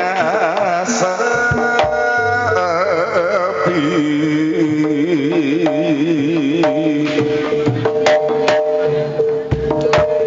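Live jaranan accompaniment music played through a PA sound system: kendang hand-drum strokes under a melody with a strong wavering vibrato, over a held note.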